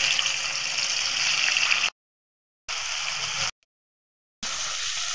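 Bata fish frying in hot mustard oil in a kadai: a steady loud sizzle, cut twice by sudden full silences about two and three and a half seconds in.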